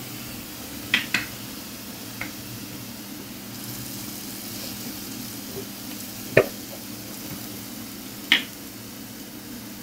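Besan (gram-flour) boondi drops deep-frying in hot oil, a steady sizzle. A few sharp clicks stand out above it: two close together about a second in, one near six and a half seconds and one near eight seconds.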